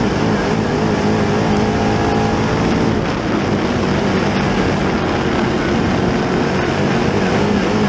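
GM 604 crate V8 engine of a dirt Late Model race car, heard from the in-car camera, running at a steady load with small wavers in pitch.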